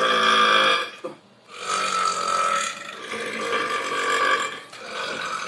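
A man belching loudly twice, in long drawn-out burps. The first is already going and ends about a second in, and the second starts after a short pause and lasts about three seconds.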